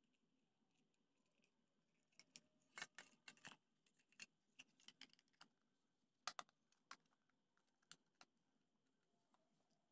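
Faint scattered clicks and rattles of hard plastic parts as a 12V alarm horn's plastic housing, speaker and circuit board are handled and pushed together, starting about two seconds in and dying away after about eight seconds.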